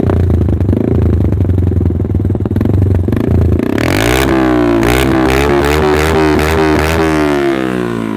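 Motorcycle engine running through an aftermarket M4 silencer with a loud sound: idling steadily, then revved up about halfway, its pitch rising and wavering, before dropping back toward idle near the end.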